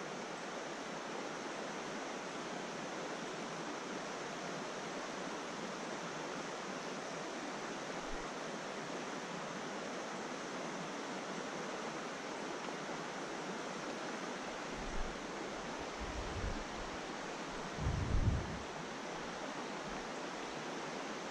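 Steady rush of a rocky mountain trout stream flowing. A few dull low thumps come in the last third, the loudest about three seconds before the end.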